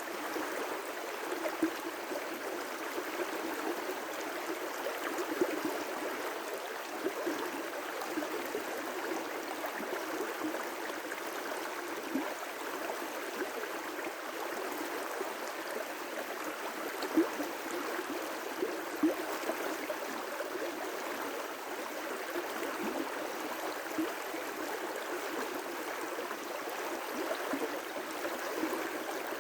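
River rapids rushing steadily, a constant watery rush with little deep rumble and a few brief louder splashes.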